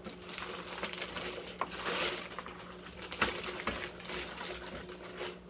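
Clear plastic bag rustling and crinkling in bursts as it is worked off a rack-mount server, with one sharp tap about three seconds in.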